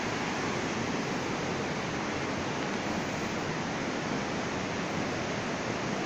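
Steady rushing of a mountain stream flowing over rocks in the canyon below.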